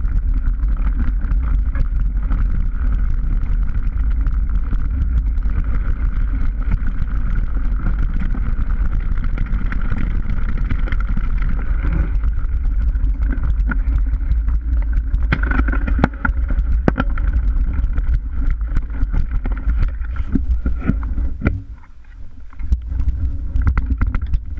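Mountain bike rattling and clattering down a rough, stony trail, with heavy wind rumble on the bike-mounted camera's microphone and many sharp knocks as the wheels hit stones. The noise eases off about three seconds before the end as the bike slows.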